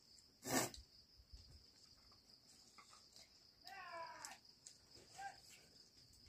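A single short, wavering animal call about four seconds in, over a steady high-pitched hiss. There is also a brief sharp knock about half a second in.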